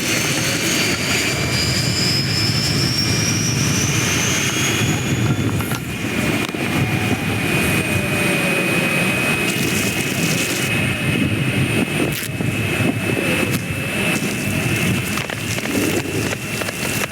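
Jet airliner engines running, with a dense rumble under a high turbine whine. One whine rises in pitch over the first few seconds, while a second whine holds steady.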